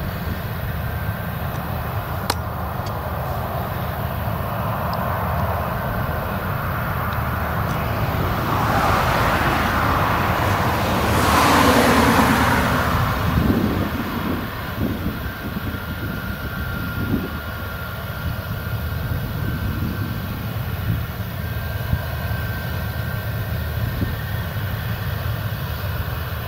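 Claas Lexion 770 TT tracked combine harvester working a rapeseed field at a distance: a steady low engine rumble, with a rushing noise that swells and fades around the middle.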